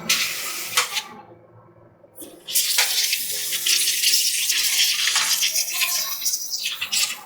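Water spraying with a hiss, in a short burst, then a pause of about a second and a half, then a longer steady spray.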